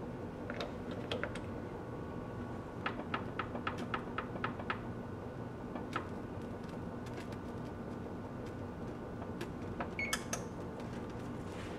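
Electric range's oven control keypad being pressed to set the preheat: a run of about eight quick clicks, a single click a little later, then a short electronic beep about ten seconds in, over a steady hum.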